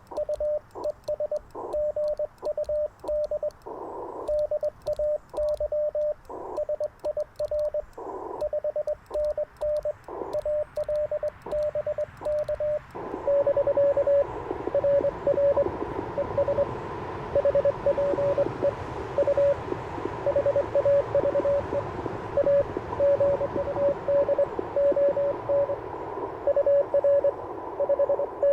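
Morse code from an Icom IC-705 transceiver, a single steady-pitched tone keyed in quick dots and dashes. For roughly the first half it is the clean sidetone of the operator sending, with faint clicks from the paddle. Then the receiver's band hiss comes up and another station's CW signal is heard at the same pitch.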